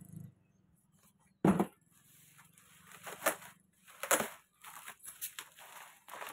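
Cardboard box and bubble-wrap packing being handled: one sharp knock about a second and a half in, then irregular bursts of rustling and crinkling as the box is worked out of its bubble-wrap bag.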